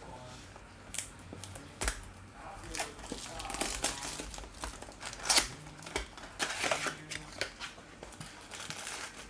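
Plastic shrink wrap and cardboard packaging of trading-card boxes being torn open and handled: irregular crinkling and rustling with short sharp clicks, busiest in the middle.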